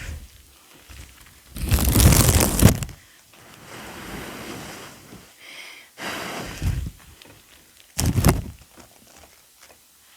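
Close-miked ASMR sounds of sand being handled and poured, coming in separate bursts: a long one about two seconds in, softer ones after, and a short sharp one near the end.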